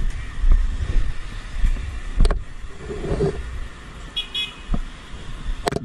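Low, fluttering rumble of road vehicle noise, broken by two sharp knocks about two and five and a half seconds in, and a brief high-pitched tone a little after four seconds.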